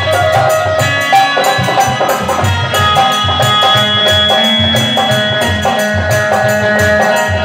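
Live Indian devotional bhajan music: a harmonium holding steady chords, with regular hand-drum beats and jingling hand cymbals.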